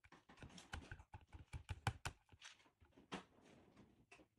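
A toddler's fingers tapping and rustling on a plate and high-chair tray while picking up salad leaves and waffle pieces: a quick run of light clicks and taps, loudest about two seconds in.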